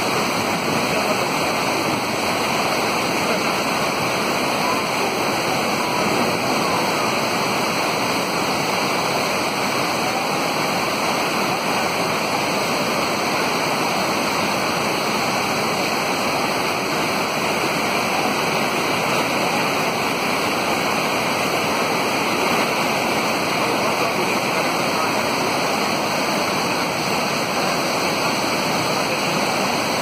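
The Rhine Falls, a broad river waterfall, pouring over rocks: a steady, unbroken rush of churning white water.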